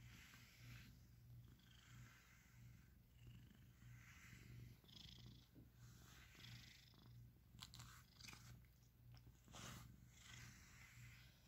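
Cat purring softly and steadily, a low pulsing hum, while a brush is drawn through its fur in short swishing strokes about once a second.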